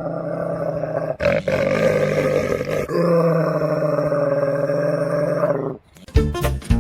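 A pet's long, low growling yowl, held at a steady pitch in three drawn-out stretches with short breaks about a second and three seconds in. It stops a little before the end, when music with plucked notes comes in.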